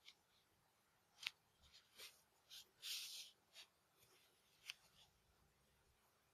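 Faint rustling and scraping of a crocheted wool hat and bow being handled, made up of a handful of short brushes, a longer rustle about three seconds in, and two sharp ticks.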